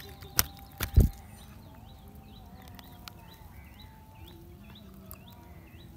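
A few sharp knocks, then a loud thump about a second in, likely from handling. After that come short, faint chirps repeating a little over twice a second, with a quiet wavering tone beneath them.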